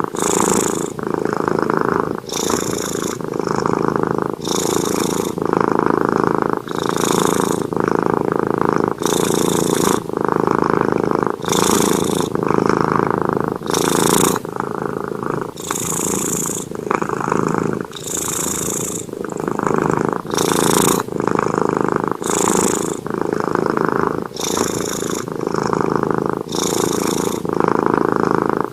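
A domestic cat purring close up, loud and continuous, the purr changing tone with each breath in and out about every second.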